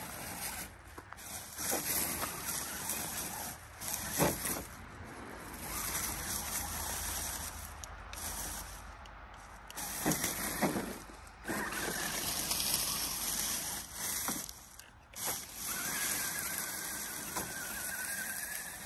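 1:10 scale RC crawler's brushed electric motor and gear drivetrain whining as it drives over rough ground, with knocks and scrapes from the chassis and tyres. The whine comes in briefly about two-thirds of the way in, then again for a few seconds near the end.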